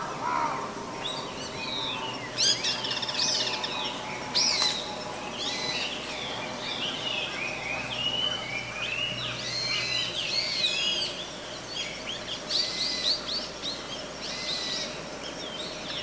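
Many small birds chirping and calling over steady outdoor ambience: a layered ambient-sound bed of park field sound and separately recorded forest ambience. The calls are short high chirps and quick sweeping notes, and a couple are louder about two and a half and four and a half seconds in.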